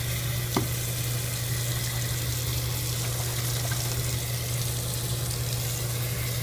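Bathroom faucet running into a sink while an empty plastic glue bottle is rinsed under the stream, water splashing steadily, with a constant low hum beneath it and a small knock about half a second in.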